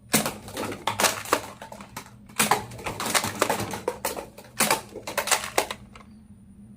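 Plastic toy gun being handled and worked: a run of irregular clicks and clatters that stops near the end.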